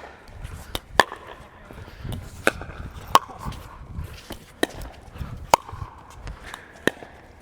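Pickleball rally: paddles striking the ball in sharp pops about once a second, some seven hits back and forth, with softer low thuds of footwork between them.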